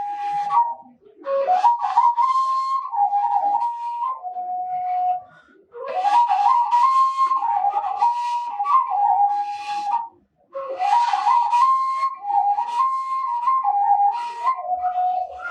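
Washint, the Ethiopian end-blown bamboo flute, playing a breathy, ornamented melody in phrases that often open with an upward slide. The playing pauses briefly about a second in, around five and a half seconds in, and just after ten seconds.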